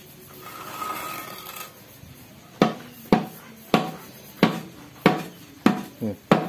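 Hammer blows through a wooden block driving a tight part out of an Isuzu Panther manual transmission during teardown. A brief scraping rattle comes first, then about eight sharp knocks at a steady pace of nearly two a second, starting about two and a half seconds in.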